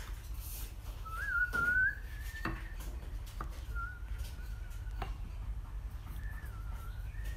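A person whistling a wavering tune in three short phrases, with a few sharp knocks of wooden pieces being set down on a workbench.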